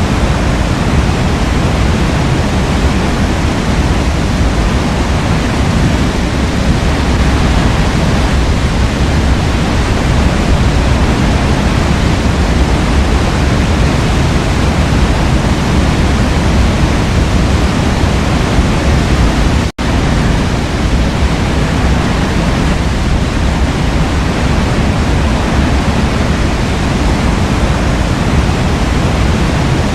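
Waterfall rushing steadily, a dense even roar of falling water. The sound drops out for a split second about two-thirds of the way through, like a splice in the recording.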